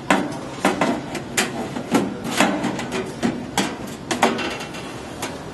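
Sheet-metal filler plate clanking and scraping against the steel chassis of a tape library as it is pushed into its bay: an irregular run of sharp metal clicks and knocks.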